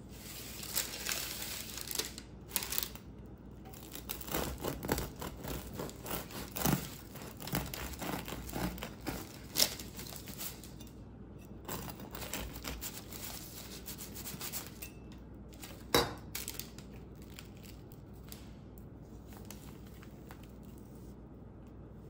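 Parchment paper crinkling and rustling as it is handled around a Dutch oven, with a couple of sharp knocks about ten and sixteen seconds in. The crinkling quiets down in the second half.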